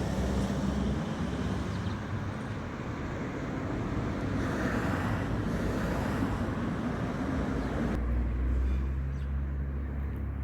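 Road traffic: steady tyre and engine noise of vehicles on the road, swelling as a car passes about halfway through, with a heavier low rumble near the end.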